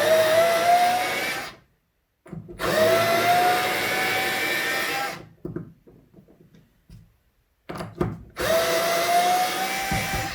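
Bosch Go GEN2 cordless screwdriver running in three bursts with a steady motor whine that rises slightly in pitch during each one, with a few clicks in the gaps between. It is driving a screw into a block of wood and backing it out again.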